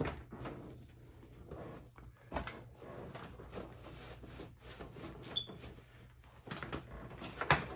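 Third-gen Camaro interior door panel being pried off and handled: scattered small clicks, creaks and scrapes as its retaining clips come loose, with a louder knock near the end.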